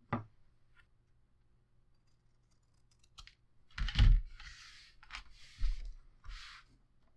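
Scissors snipping the corners off a paper-covered chipboard cover, heard as a few small clicks, then a knock about four seconds in as the scissors are put down on the table. Three short rustles of paper and card being handled follow, with another light knock between them.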